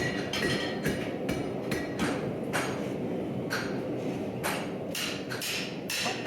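A hand hammer striking steel on an anvil in quick, irregular blows, about two to three a second, each with a short metallic ring. The blows sit over a steady low background noise.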